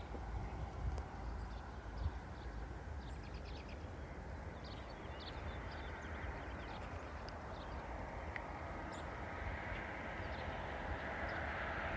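Freight train led by an EMD SD40-2 diesel locomotive approaching from a distance: a faint, even rumble that grows slowly louder toward the end. Small birds chirp over it through the middle.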